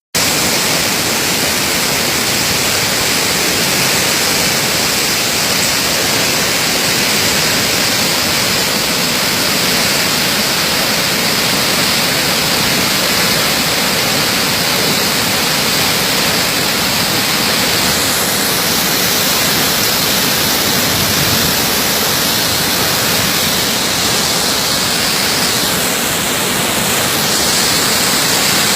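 Waterfall in flood, a steady, loud rush of falling water.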